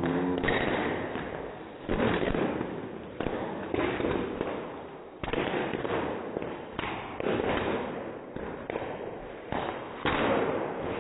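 Bubble wrap popping under dancing feet: rapid, dense crackling pops that come in surges every second or two.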